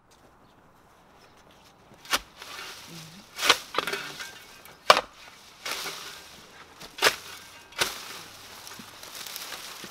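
A garden spade chopping down into soil and dry, woody weed stems, about five sharp strikes in all, beginning about two seconds in, with dry stems and dirt scraping and rustling between them.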